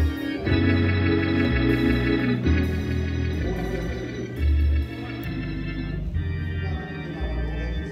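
Organ playing slow, sustained chords over deep bass notes, the chords changing about once a second.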